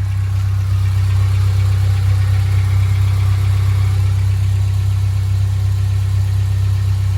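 Car engine idling steadily with its exhaust joint freshly resealed by a new gasket; no leak is felt at the joint.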